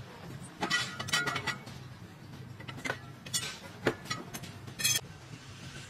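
Workshop sounds: scattered metallic clicks and knocks over a steady low hum.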